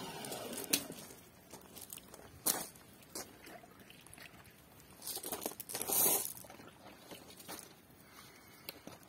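Footsteps on loose gravel, with scattered crunches and light knocks as cleaning gear is put down and picked up; a longer crunching rustle about five to six seconds in.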